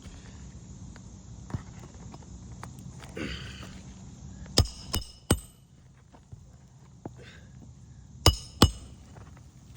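Hammer driving roofing nails into an asphalt shingle: three sharp strikes in quick succession near the middle, then two more near the end, each with a short metallic ring.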